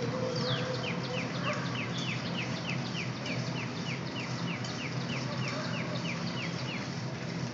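An animal chirping: a long run of short, quick falling chirps, about three a second, that stops near the end, over a steady hiss and low hum.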